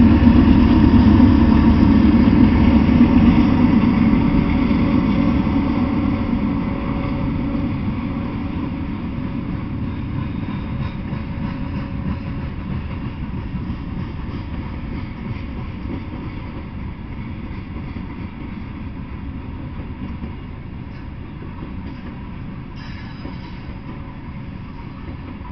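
Freight train passing: a Norfolk Southern diesel locomotive is loudest at the start, then loaded coal hopper cars roll by, the rumble fading steadily.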